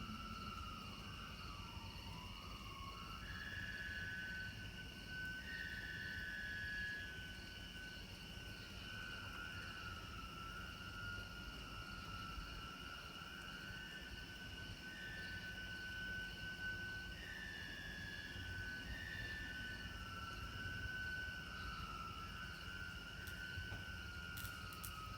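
An unexplained high, wavering tone that slides up and down in pitch without a break, at times in two voices, over a steady chorus of insects. A couple of sharp cracks come near the end, typical of a bug zapper.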